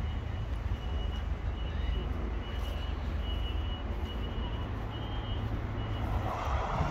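A faint high-pitched electronic beep repeating roughly once a second over a steady low rumble.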